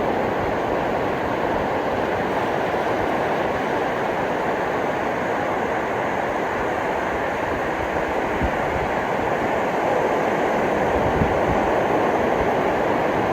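Ocean surf washing steadily onto a beach, a continuous rushing noise that swells a little near the end.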